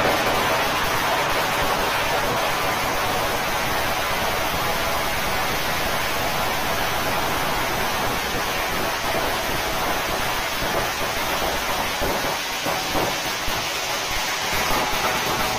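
Firecrackers packed inside a burning Ravan effigy going off in a dense, continuous crackle, with flames and sparks bursting from the effigy.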